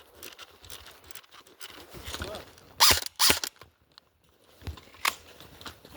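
An airsoft gun being handled and test-fired while it is misfeeding: small clicks and rattles, then two loud sharp snaps about half a second apart a little before the middle, and another near the end.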